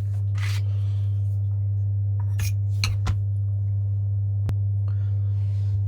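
A few separate clicks and clacks from handling an airsoft pistol and its gas magazine while the magazine is being re-gassed, over a steady low electrical hum.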